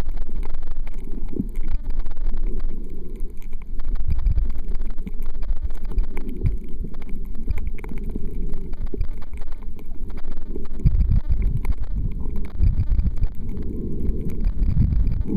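Water heard through a submerged camera: a loud, muffled low rumble that surges and eases as the water moves, with faint crackling clicks above it.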